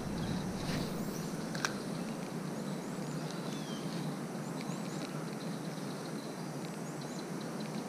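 Outdoor ambience: a steady background hiss with a few faint, short, high bird chirps and a single faint click.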